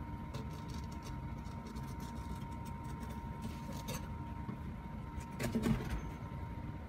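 Steady kitchen hum with a constant thin whine. About five and a half seconds in comes a short burst of handling noise as the pike conger is shifted and gripped on the wooden cutting board.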